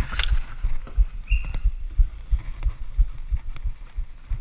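Muffled, irregular low thumps and knocks from a body-worn GoPro in its housing as the wearer moves, with a few sharp clicks and a brief high squeak about a second and a half in.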